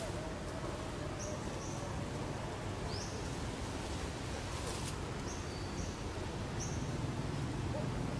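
Outdoor forest ambience: a steady hiss with short high chirps every second or so, one rising, and a brief rustle about halfway through.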